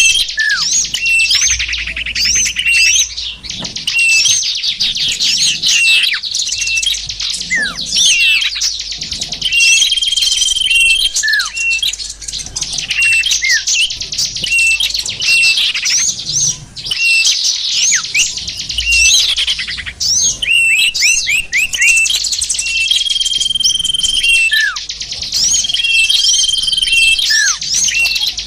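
Lure-call recording of small songbirds: many rapid high chirps and twitters at once, with a held whistled note coming back every several seconds and short falling notes, used to draw small birds in for trapping.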